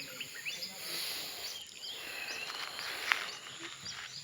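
Outdoor ambience of many short, high animal chirps over a steady high-pitched tone, with one sharp click about three seconds in.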